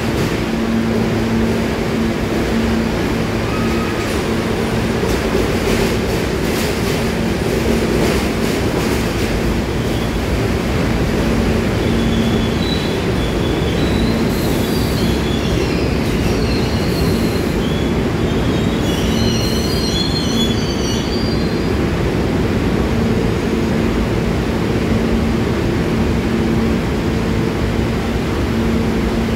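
R68 subway train rolling past along the station track, with a steady hum under the rumble of the wheels. A few clacks come in the first several seconds, and from about twelve seconds in the wheels squeal in high, broken chirps for several seconds.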